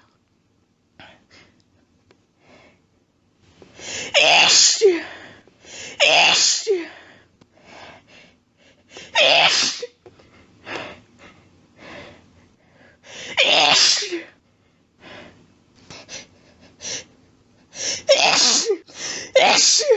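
A person sneezing repeatedly: a run of loud, sharp sneezes a few seconds apart, with three in quick succession near the end and faint breaths or sniffles between them.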